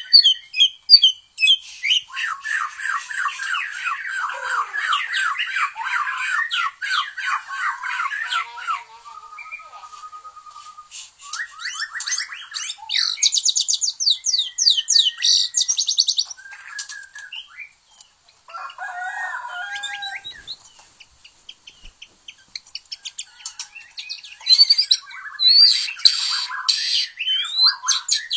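White-rumped shama (murai batu) singing a varied song: a long run of rapid repeated notes, then a fast high trill and shorter phrases, a few seconds' pause about three-quarters through, and another burst of high notes near the end.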